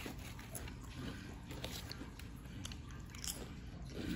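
A person chewing and crunching a mouthful of sub sandwich topped with crushed nacho-cheese tortilla chips, with many small sharp crunches scattered through the chewing.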